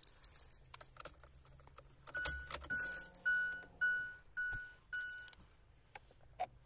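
Car keys jangling and clicking at the ignition, then the car's dashboard warning chime sounding six times, a clear tone that fades after each ring, about two a second, as the ignition is switched on.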